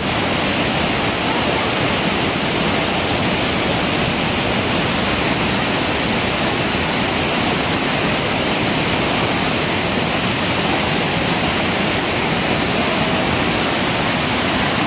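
Whitewater rapids: a big river crashing over boulders, a steady, loud rushing of water that does not change.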